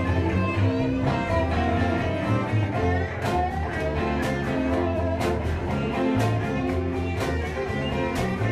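Live band playing an instrumental passage with acoustic and electric guitars over a steady low bass line. From about three seconds in, sharp hits keep the beat.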